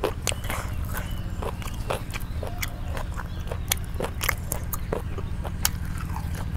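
Close-miked biting and chewing of crunchy raw vegetables: a run of sharp, irregular crunching clicks, with the handling of fresh leafy greens. A steady low hum runs underneath.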